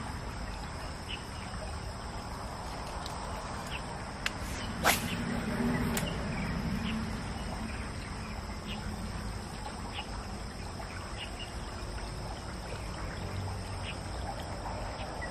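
Insects trilling steadily, with scattered short bird chirps. About five seconds in comes a sharp knock, followed by a brief low rumble.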